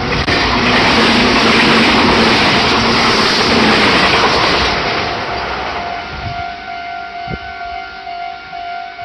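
A Meitetsu Nagoya Main Line train passing over a level crossing, its loud rushing wheel-and-rail noise lasting about five seconds before fading. The crossing's warning bell rings steadily throughout and comes to the fore as the train noise dies away.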